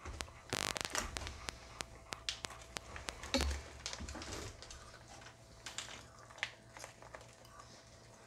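Clear plastic zip bag holding beef jerky crinkling and crackling in the hands, a run of small irregular clicks that thin out toward the end. A short buzz sounds about half a second in.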